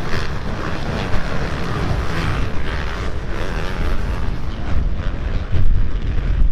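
Wind buffeting the microphone over motocross bike engines running on the track, with a few brief knocks.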